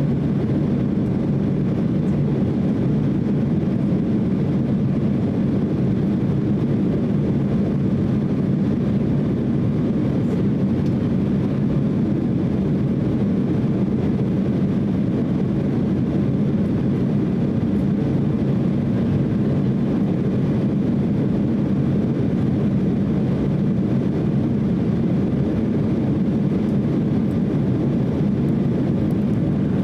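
Steady cabin noise inside an Embraer E170 climbing after takeoff: an even, low drone of its wing-mounted GE CF34-8E turbofan engines mixed with rushing airflow.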